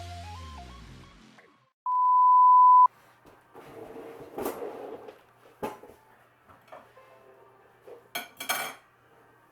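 Electronic music fades out, then a loud, steady, single-pitched beep sounds for about a second. After it come faint clinks and clatters of dishes and cutlery, with a few sharper knocks near the middle and near the end.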